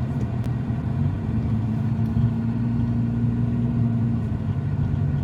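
A car driving along: steady engine and road rumble with a low, even hum.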